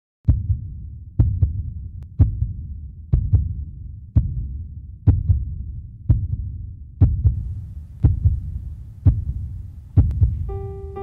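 Slow heartbeat sound effect: deep paired thumps about once a second. A sustained piano note comes in near the end.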